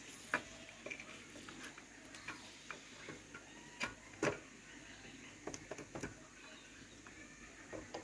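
Irregular light clicks and knocks, like tools and small metal parts being handled and set down, with two louder knocks close together about four seconds in.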